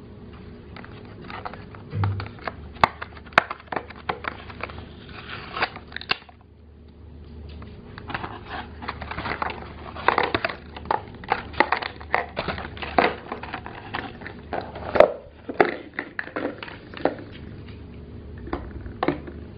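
Small hollow plastic toy food bottles and boxes being handled and lifted out of a plastic tray: irregular clacks, knocks and light crinkles, with a short lull about six seconds in.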